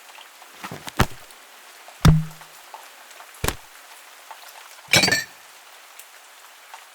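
A string of separate impact sound effects, about five hits: knocks and thuds, one with a brief low ring after it, and near the end a crackling, breaking hit. A steady faint rain ambience runs underneath.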